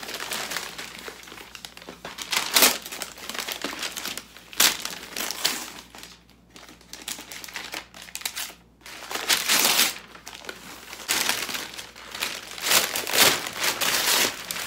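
Brown paper wrapping crinkling and rustling in irregular bursts as it is pulled off a large framed picture, with a quieter lull midway.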